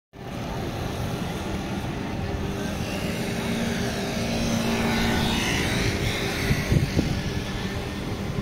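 City street traffic noise: a steady rumble of passing vehicles, a little louder around the middle, with a few sharper peaks near the end.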